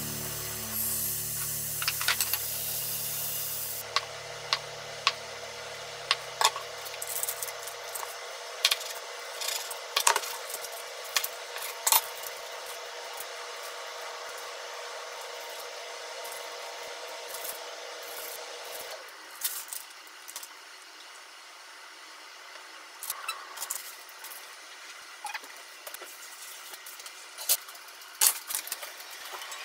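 Butter and soy sauce sizzling in a hot frying pan with a bright hiss for the first few seconds, then a kitchen knife cutting on a wooden chopping board in scattered sharp taps and clicks. Near the end a pan lid clinks as it is lifted.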